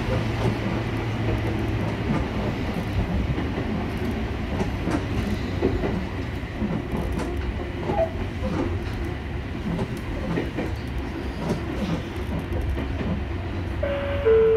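Ohmi Railway electric train running along the line, with a steady low rumble and scattered clicks and knocks from the wheels on the track. Near the end an electronic two-note chime sounds, high then low, the chime that comes before the onboard automated announcement.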